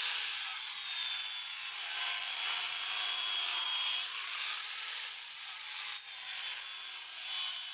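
Handheld electric angle grinder with an abrasive disc grinding the flat of a steel blade cut from a chainsaw guide bar. It makes a steady, hissing grind with a thin high whine from the motor, swelling and easing slightly as the disc is worked along the steel.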